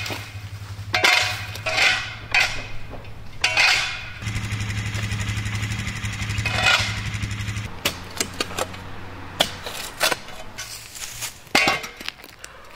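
Several scraping strokes of a shovel clearing packed earth off a concrete slab, over the steady low hum of an engine running that fades after about eight seconds.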